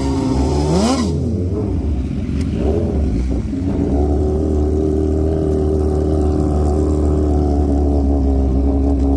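Drag-racing engine revving up and down, a brief rush of noise about a second in, then the engine running at a steady pitch from about three and a half seconds on.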